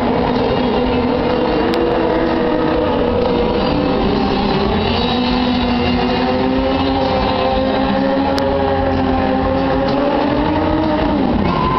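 Stunt cars' engines running and revving as they drive around the arena, their pitch rising and falling. Near the end one engine's pitch dips sharply and climbs again.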